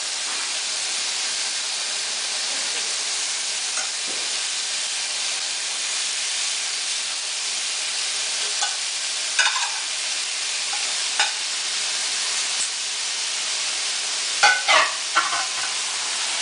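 Steady sizzling of dry-rubbed steaks searing on a hot cast iron grill pan, with several sharp clicks of metal tongs in the second half.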